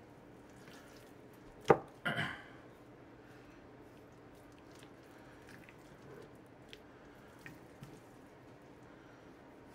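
A knife trimming fat from a raw pork shoulder on a wooden cutting board: one sharp knock just under two seconds in, then a short wet rasp of the blade through the meat, and a few faint soft clicks later.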